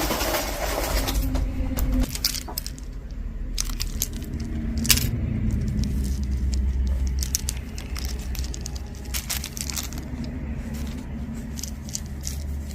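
Small metal costume jewelry pieces clicking and jingling as they are handled and sorted, with scattered sharp clicks, the loudest about five seconds in, over a low steady hum.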